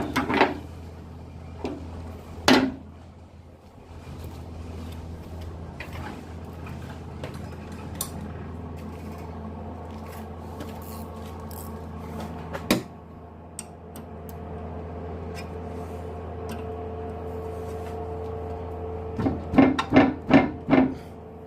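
Metal hand tools clinking and knocking against the brake caliper and its bolts, with a quick run of sharp clicks near the end, over a steady low hum.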